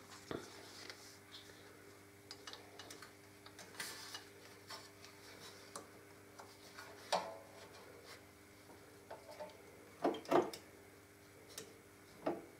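Hand tools clicking and knocking against metal while the swingarm mount bolt on a Harley-Davidson Electra Glide is worked: scattered small ticks, with a few sharper knocks about seven and ten seconds in. A faint steady hum runs underneath.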